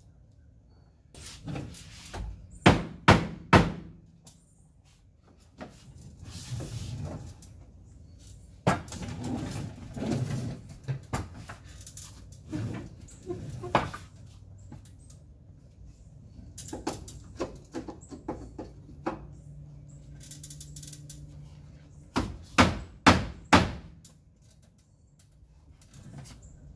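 A mallet knocking tongue-and-groove pine ceiling boards into place overhead: three sharp knocks a few seconds in, single knocks later, and a quick run of about five near the end, with boards being handled and rubbed between.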